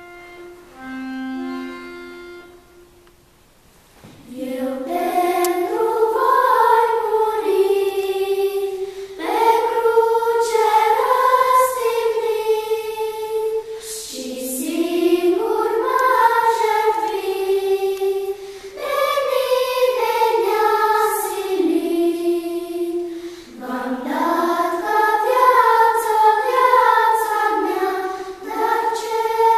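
Girls' school vocal ensemble singing a song together in long phrases with short pauses between them, beginning about four seconds in. It is preceded by a few held instrumental notes that give the pitch.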